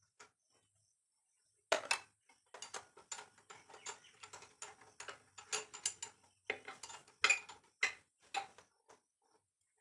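Irregular metallic clinks and clatter, as of tools and metal engine parts being picked up and set down, starting about two seconds in and going on in uneven bursts.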